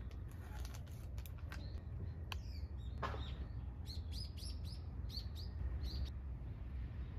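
Small birds chirping: a quick run of short, high, falling chirps about four to six seconds in, over a low steady rumble.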